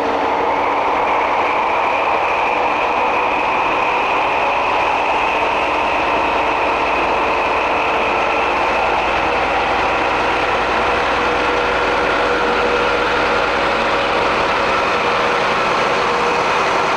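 Diesel engine of a DB diesel-hydraulic mainline locomotive running steadily at low revs, with a steady high whine over the engine note.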